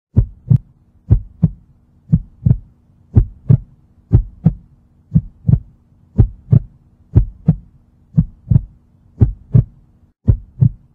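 Heartbeat sound effect: paired lub-dub thumps, about one pair a second, over a steady low hum.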